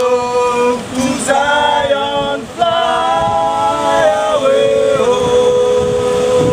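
A man singing unaccompanied, holding long drawn-out notes that glide from one pitch to the next.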